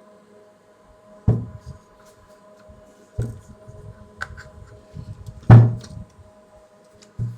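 Four dull knocks, roughly two seconds apart and the third the loudest, with light clicks between: hard parts of a vacuum cleaner motor being handled and set down while its carbon brushes are taken out.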